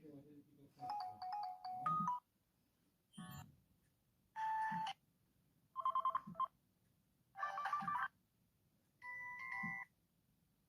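Samsung Corby mobile phone ringtones played one after another: six short melodic snippets of about a second each, each a different tune, with brief gaps between them.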